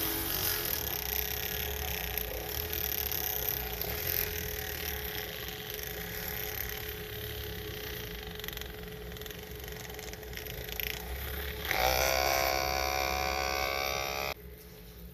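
Miniature motorised rotary scrubber with a spinning pad, running steadily as it scrubs foamy shampoo into a tiny carpet. Near the end the motor runs louder with a higher whine for a couple of seconds, then cuts off suddenly.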